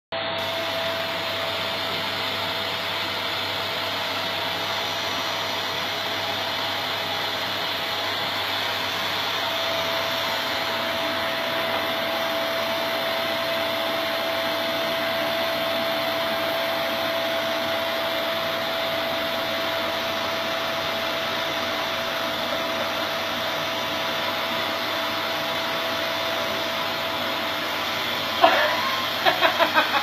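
Vacuum cleaner running steadily with one constant tone in its noise, being run over a Bengal cat's fur. Near the end comes a sudden loud sound, then a quick run of about five short pitched sounds.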